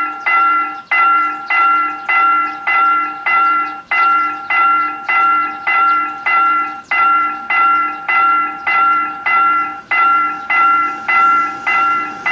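Railroad level-crossing warning bell ringing in a steady rhythm of about two strokes a second, each stroke fading before the next. This is the crossing signal warning of an approaching train.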